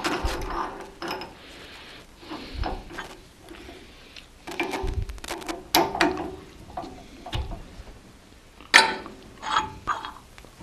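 Drill bit being changed in a small benchtop drill press chuck: the chuck key and jaws clicking and ratcheting, and the steel bit rattling against metal, with a sharp clack a little before the end.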